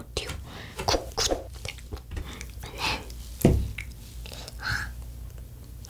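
Close-miked small clicks and crackles of UFO wafer candies topped with popping boba being handled and picked up off a wooden board, with one louder knock about three and a half seconds in.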